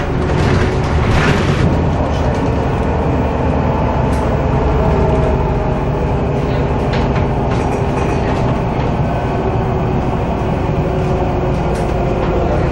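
Bus engine and road noise heard from inside the bus as it drives along: a steady low rumble with a faint steady whine over it.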